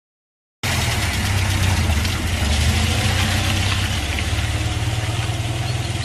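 An engine running steadily: a low, evenly pulsing rumble with hiss above it, cutting in suddenly out of silence about half a second in.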